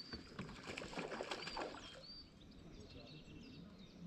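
Small birds chirping and twittering faintly, with short high calls scattered throughout.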